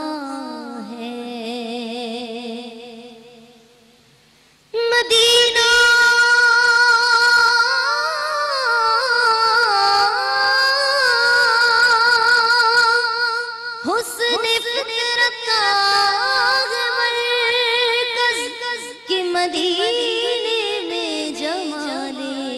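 A woman singing a devotional Urdu naat into a microphone, holding long drawn-out notes with a wavering vibrato. The voice fades out about four seconds in, then comes back loud on a long held note and carries on singing.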